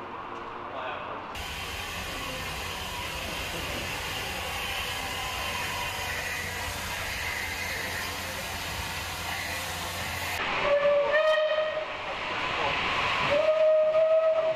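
Steam locomotives standing in steam, hissing steadily, then a steam locomotive's whistle blows twice: a blast of about a second, then a second, slightly longer blast near the end, each on one held note.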